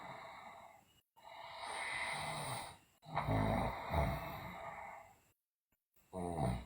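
A sleeping girl breathing heavily: a breathy exhale, a long noisy breath, then a louder, voiced, sighing breath. After a stretch of dead silence comes a short voiced groan near the end.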